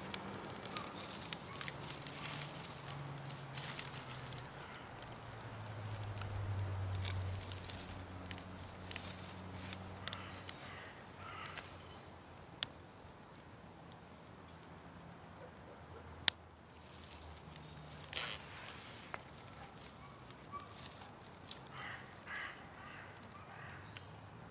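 Hands handling a smouldering tinder bundle and split wooden feather sticks: rustling and scattered light clicks of wood being laid down, with one sharp knock about sixteen seconds in.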